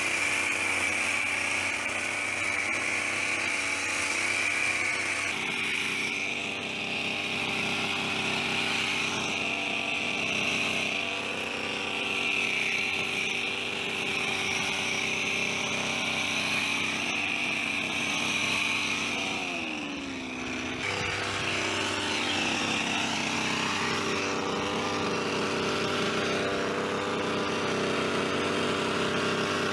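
Petrol hedge trimmer's small engine running steadily at high speed. About two-thirds of the way through, its pitch drops briefly as the throttle eases, then it picks back up.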